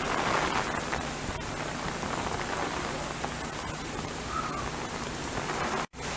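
Hurricane rain falling steadily, an even hiss. The sound drops out for an instant near the end.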